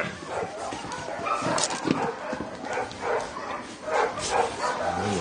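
A litter of puppies whining and yipping, many short overlapping calls.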